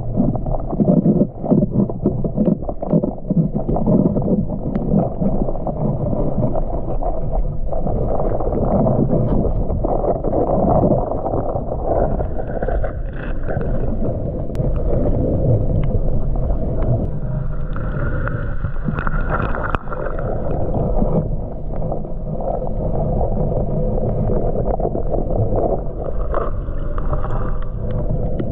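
Muffled rushing and sloshing of water heard through a camera held under water, with scattered clicks and knocks in the first few seconds.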